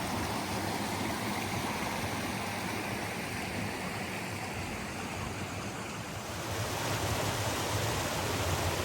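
Small mountain creek flowing: a steady rush of water, a little louder in the last couple of seconds.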